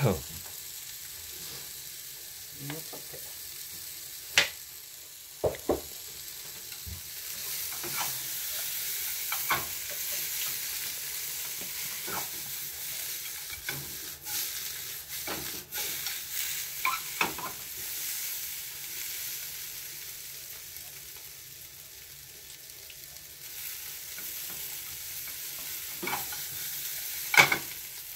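Food sizzling in a frying pan with a steady hiss while a utensil stirs it, clicking and scraping against the pan, with a few sharper knocks, the loudest near the end.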